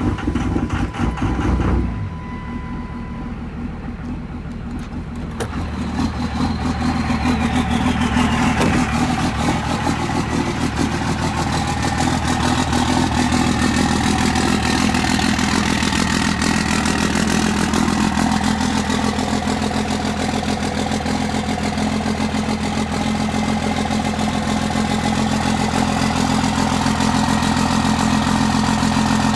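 Cummins diesel engine running steadily after a cold start at about 9 °F, unplugged. The run follows about two seconds of a rhythmic pulsing sound. The engine grows louder about six to eight seconds in, while a high whine falls away.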